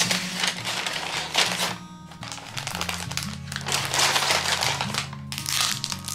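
Kraft paper bag rustling and crinkling as it is handled and folded, in several spells, over background music with steady low notes.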